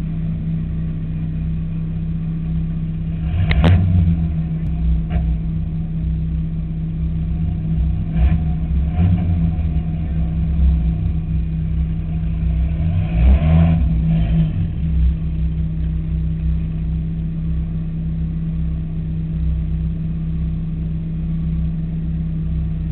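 Race car engine idling steadily, heard from the car, with a few sharp knocks, the loudest about three and a half seconds in and again near the middle.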